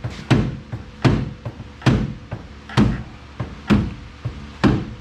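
Hammer blows on the Ford Contour's rear strut assembly, about one heavy metallic strike a second with short ringing after each, six in all with lighter knocks between. They are knocking the angled strut straight so its top bolt hole lines up.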